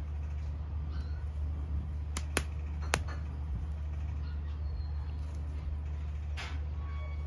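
Fabric baby carrier and its snap-on drool pads being handled, with three sharp clicks about two to three seconds in and a softer one near the end. A steady low hum runs underneath.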